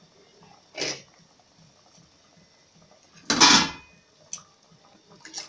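Metal cookware clatter at a pot of boiling broth: a short knock about a second in, then a louder clatter with a brief metallic ring a little after three seconds.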